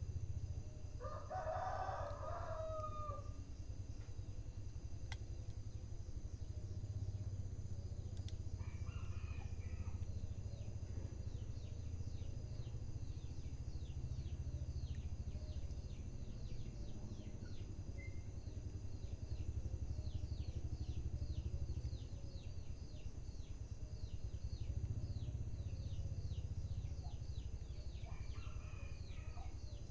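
A rooster crows loudly about a second in, with two fainter crows later on. Under it runs a steady low rumble, and from about a third of the way in a dense run of faint quick ticks.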